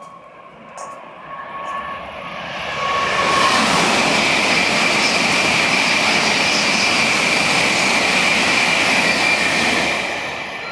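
Tokaido Shinkansen bullet train passing at speed on the elevated line: a rush of wheel and air noise with a steady high whine. It builds over about three seconds, holds loud and steady for about seven, then begins to fade near the end.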